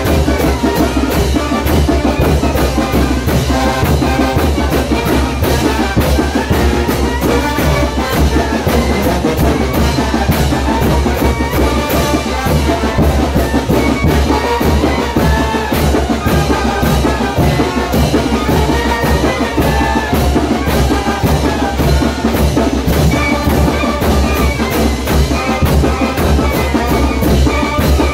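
Live brass band playing the music for a chinelo dance: trumpets and other brass over a steady, driving drum beat.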